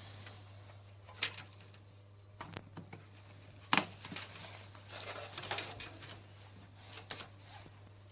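Hands handling computer parts during a PC assembly: scattered sharp clicks and taps with some rustling, over a steady low hum.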